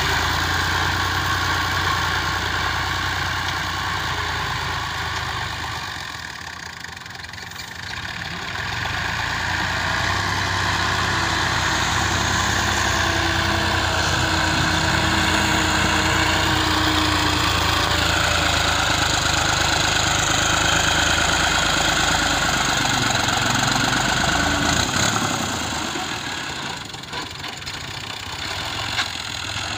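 Al Ghazi 65 hp tractor's diesel engine running as it pushes soil with a front blade. The engine eases off twice and picks up again.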